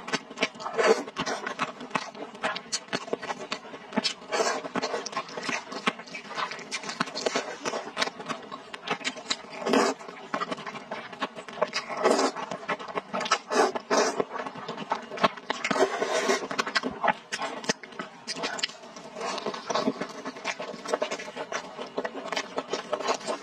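Close-miked eating sounds: wet chewing and lip smacks on spicy fish balls, with loud slurps of instant noodles in the middle.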